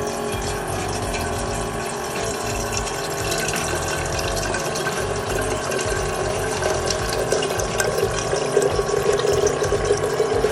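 Water running steadily from a tap into a vessel, filling it; the note of the filling rises and strengthens over the last few seconds.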